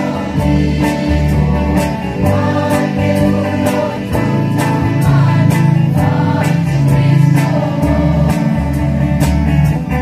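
A young women's church choir singing a gospel hymn together, over instrumental accompaniment with a steady beat and a strong bass line.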